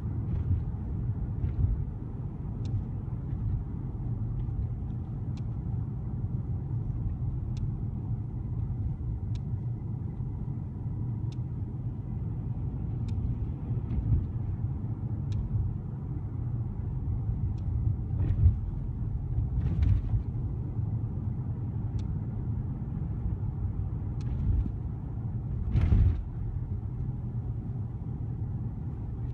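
Car driving along a road: a steady low rumble of engine and tyre noise, with faint ticks about every two seconds and a few louder bumps in the second half.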